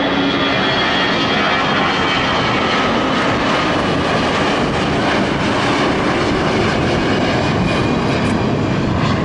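Twin-engine jet airliner climbing out after takeoff, its jet engines at high power: a loud, steady rush with a faint high whine over it.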